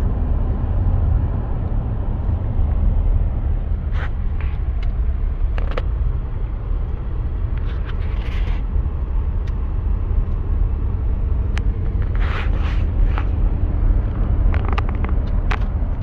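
Steady low rumble of a car driving, heard from inside the cabin, with a few brief clicks and rustles.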